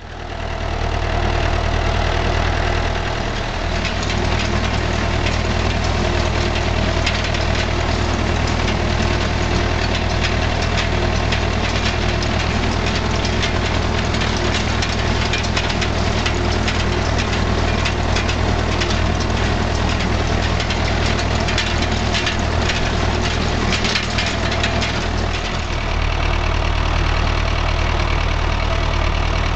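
David Brown 995 tractor's three-cylinder diesel engine running steadily while pulling a hay rake, with a rattling clatter over much of it that eases off a few seconds before the end.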